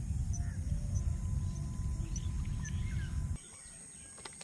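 Wind buffeting the microphone as a low rumble, with small birds chirping now and then. The rumble cuts off abruptly about three seconds in, leaving the faint bird calls.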